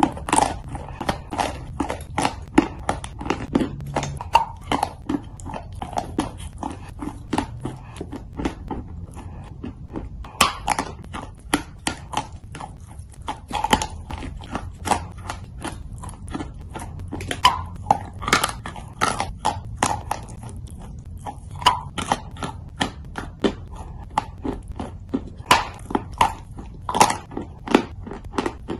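Lumps of chalk being bitten and chewed: many sharp, irregular crunches, a few each second.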